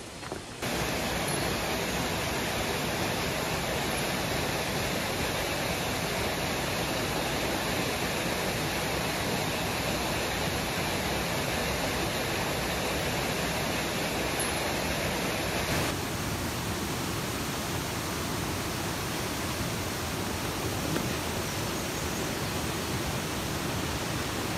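Steady rush of mountain river water in a rocky gorge. It jumps louder about half a second in and changes tone abruptly about sixteen seconds in.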